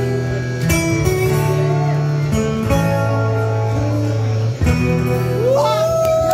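Amplified acoustic guitars played live, ringing chords with strong bass notes and a brief break about two-thirds of the way through. Near the end, rising whoops from the audience start over the guitars.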